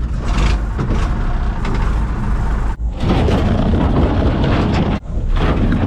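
Cat excavator at work: its diesel engine and hydraulics running loud and steady, with two brief breaks in the sound.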